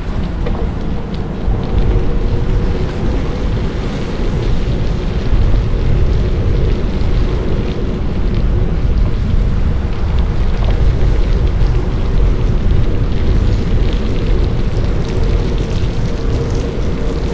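Wind buffeting the microphone of a GoPro action camera during a bike ride, a loud rumble with a faint steady hum underneath.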